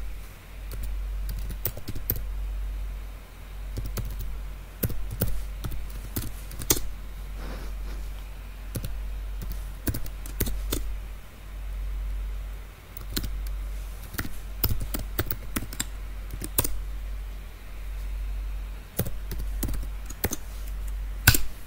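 Computer keyboard typing in short bursts of keystrokes with pauses between, over a low hum.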